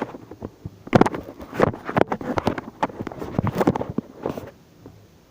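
A run of irregular knocks and bumps that stops about four and a half seconds in.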